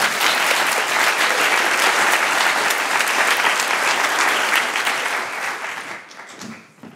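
Audience applauding, a dense patter of many hands clapping that holds steady and then fades away about six seconds in.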